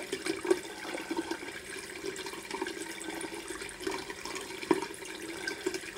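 Tap water running steadily into a bathroom sink, with one sharp knock near the end.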